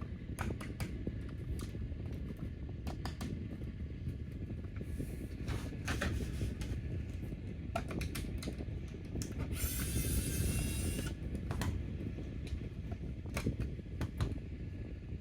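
Small toy mechanism running with a steady low whirr, with scattered sharp clicks of plastic parts being handled and a brief hiss about ten seconds in.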